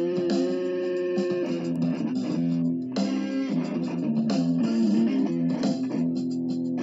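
Instrumental background music led by guitar, with plucked and held notes over a bass line.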